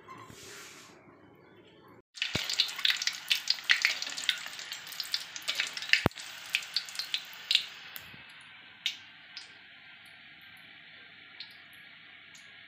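Wonton wrappers deep-frying in hot oil in a wok. The frying starts abruptly about two seconds in with dense crackling and popping, then after about eight seconds settles into a steady sizzle with only a few scattered pops.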